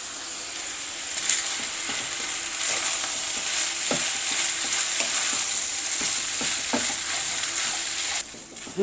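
Fried rice with lamb sizzling in a nonstick wok while a wooden spatula stirs and tosses it, with a few scrapes and taps of the spatula against the pan. The sizzle cuts off abruptly near the end.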